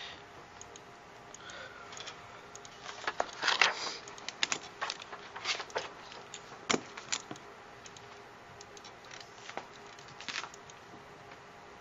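A run of irregular sharp clicks and taps, densest from about three to ten seconds in, over a faint steady hum.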